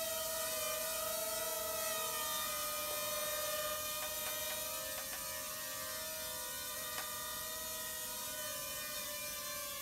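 Small quadcopter drone's propellers whining steadily, several tones drifting slightly in pitch as it flies. A few faint clicks about four to seven seconds in.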